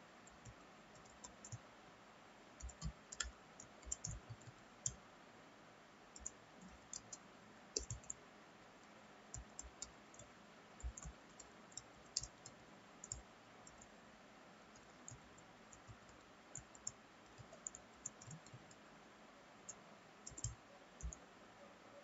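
Faint computer-keyboard typing: short, separate key clicks in irregular runs with brief pauses between them.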